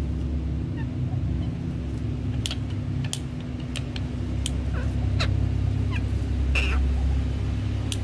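Ringneck parakeets giving short, sharp chirps and clicks, scattered through, with one longer squawk near the end, over a steady low hum.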